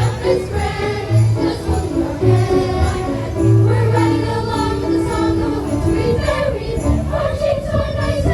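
Youth choir singing a Christmas song over an amplified accompaniment with a bass line and jingle bells keeping the beat.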